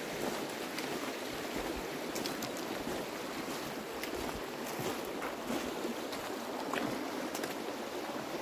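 Fast-flowing mountain river rushing steadily over its bed, with a few short clicks scattered through it.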